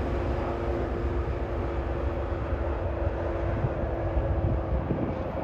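Diesel locomotives pulling a loaded coal train pass by with a steady deep engine drone. A held engine tone running over the rumble stops near the end.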